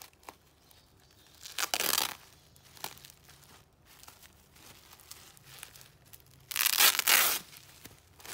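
Plastic bubble wrap crinkling and rustling as it is handled and pulled aside, with two louder bursts of crackling, about two seconds in and again around seven seconds.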